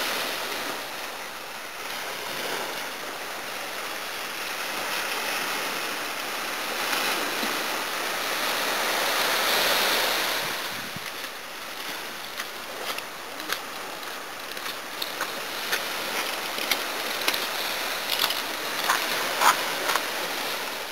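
Small sea waves breaking and washing up the shore, swelling and fading every few seconds. Over the second half there is a scattered run of sharp clicks and taps.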